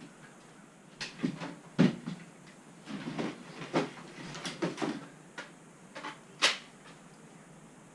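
Irregular knocks and clicks of tools and metal parts being handled during repair work, about a dozen, with the sharpest about two seconds in and another near the end.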